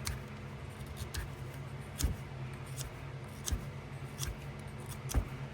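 Pocket knife blade whittling a point on a wooden stick: short, sharp shaving cuts about once a second, over a faint steady low hum.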